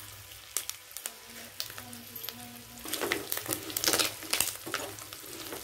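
Fish roe pieces and chilli powder sizzling and crackling in hot oil in a kadai. About three seconds in, a steel ladle starts stirring them, and the crackling grows louder and denser, with the ladle scraping against the pan.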